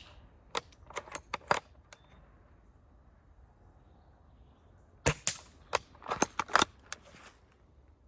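Airsoft replica gun firing single shots: a quick string of about five sharp snaps near the start, then a pause, then another string of about seven snaps around five to seven seconds in.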